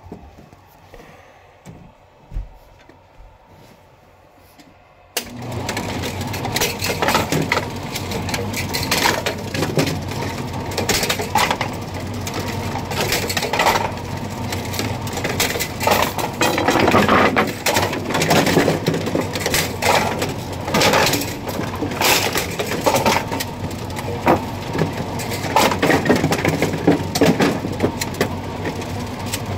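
Half-scale bowling pinsetter cycling. It starts suddenly about five seconds in and runs with a steady mechanical clatter and frequent sharp clanks as the pin deck and spotting cups move.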